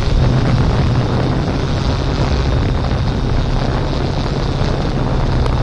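Steady hum and rush of a camera drone's propellers, with wind on the microphone.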